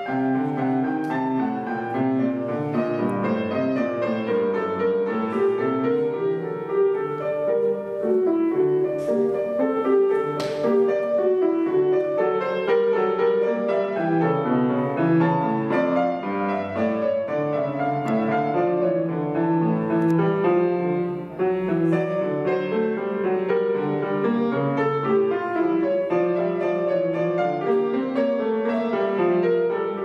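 Solo classical piano played on an Estonia grand piano: a busy passage of quick, continuous notes.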